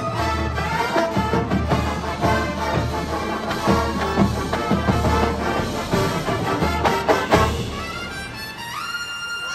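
A drum and bugle corps playing its show live in a stadium: brass hornline over drums and the keyboards and percussion of the front ensemble. Near the end the full sound drops back and a tone climbs in steps.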